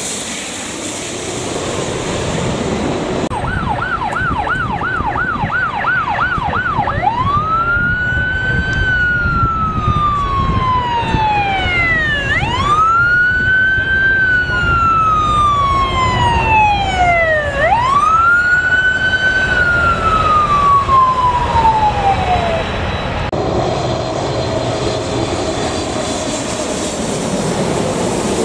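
Ambulance siren on a Los Angeles Fire Department paramedic unit: a fast yelp for about three seconds, then a slow wail that rises and falls three times before it shuts off. A low rumble of engine and traffic runs underneath throughout.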